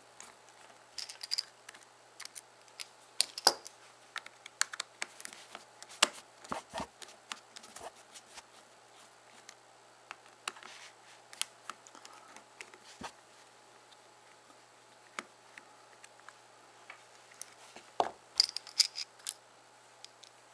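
Irregular small clicks and taps of a small Torx screwdriver and fingers on the screws and plastic housing of a BlackBerry 8330 as its four T6 screws are loosened, with clusters of sharper clicks about a second in, around three seconds in and near the end, and a quieter stretch in between.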